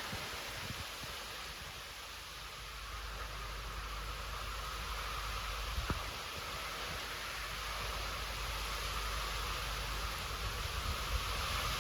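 Steady rush of hurricane wind and heavy rain, with a low rumble of wind buffeting the microphone. A single faint click about six seconds in.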